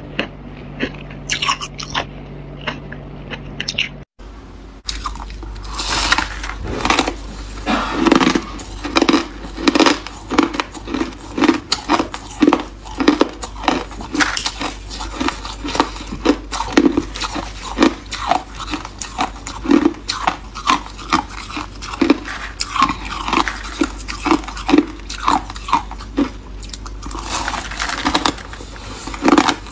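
Close-miked chewing and crunching of soft freezer-frost ice, a steady run of crunches about twice a second. Before a brief dropout about four seconds in, the sound is a lighter crackling.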